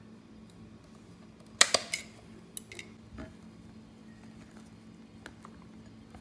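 A quick cluster of loud clinks and knocks against a glass mixing bowl about one and a half seconds in, then a silicone spatula folding batter in the bowl, with a few light taps, over a faint steady hum.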